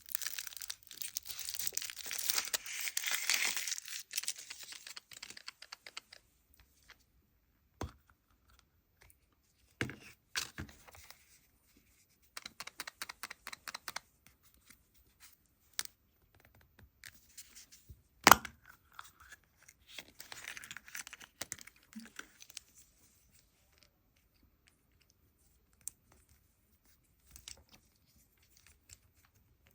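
Foil wrapper of a chocolate surprise egg being torn and crinkled open, then scattered clicks and short rustles of handling. There is one sharp click about two-thirds of the way in.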